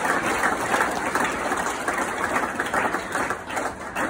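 Audience applauding, the clapping slowly fading toward the end.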